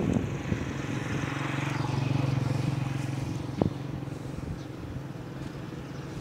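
A motor vehicle's engine humming at a steady pitch as it passes, growing louder to about two or three seconds in and then fading. A single sharp click a little past halfway.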